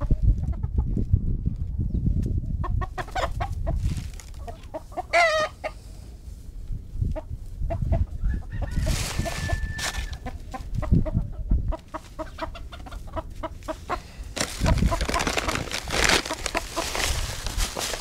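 Domestic chickens clucking as they peck and scratch in straw, with a wavering call about five seconds in. A low rumble runs underneath, and a loud rustling rises over the last few seconds.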